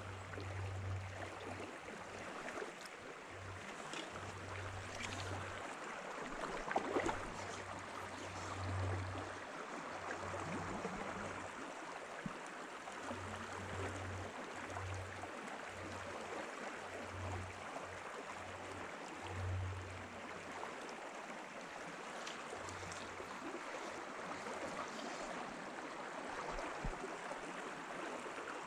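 Small river flowing: a steady rush of running water, with a low rumble that comes and goes.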